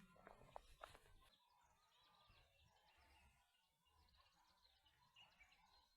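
Near silence: faint outdoor ambience with scattered faint bird chirps, and a few faint clicks in the first second.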